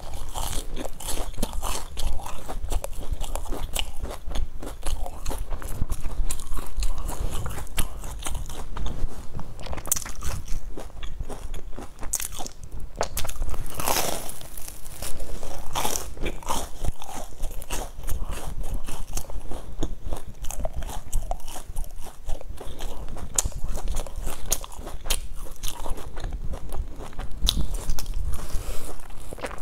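Close-miked bites into a crusty, crumb-topped bread bun and steady chewing, with many small crunches from the crust.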